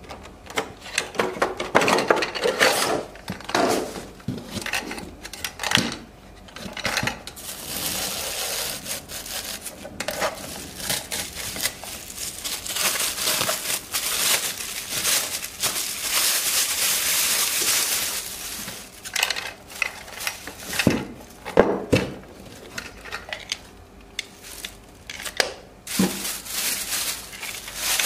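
Hands crinkling and rustling thin plastic: a clear packaging bag and a dog waste bag being pulled and stretched over a plastic pooper-scooper dispenser. Now and then there are short knocks and clicks from the dispenser's hard plastic parts.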